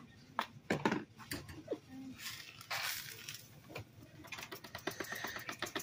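Gold paydirt poured and shaken from a plastic gold pan into a stainless-steel mesh strainer: scattered clicks and taps of gravel and the pan against the metal mesh, with a longer gritty pour about two seconds in.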